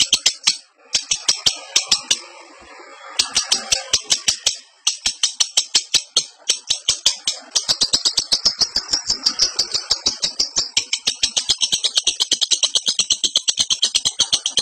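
Lovebird in breeding condition giving its 'ngekek' song: a long, fast, rattling chatter of sharp high notes at about eight a second, broken off twice in the first few seconds before running on without a break.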